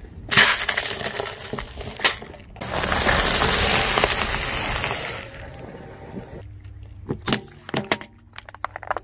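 A car tyre slowly rolling over and crushing objects on asphalt: loud crackling and crunching as a plastic bowl of candy-coated chocolates gives way, then a longer dense crunch and crinkle as a wrapped ice cream cone is flattened. A few sharp separate cracks near the end.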